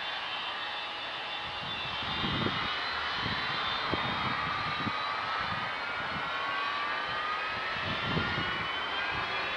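Avro Vulcan XH558's four Rolls-Royce Olympus turbojets running on the runway: a jet whine of several tones that slowly climb in pitch over a continuous roar, with irregular low rumbles.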